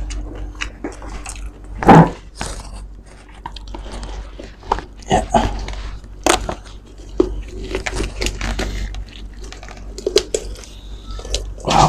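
Bare hands tearing apart a whole roast suckling pig, ripping the meat and breaking its crisp skin with irregular crackles and crunches. The loudest crunch comes about two seconds in.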